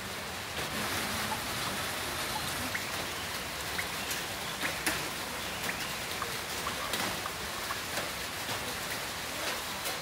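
Heavy rain falling steadily, an even wash of noise with many sharp taps of single drops striking a surface throughout.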